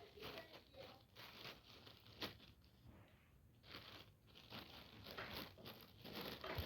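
Faint crinkling and scraping of grated bar-soap shavings being worked into a bottle, with one sharp tap a little over two seconds in.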